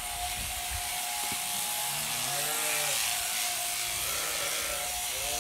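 Electric sheep-shearing machines running: overhead hanging motors driving handpieces whose cutters buzz through the fleece, with a steady whine. A sheep bleats about two seconds in.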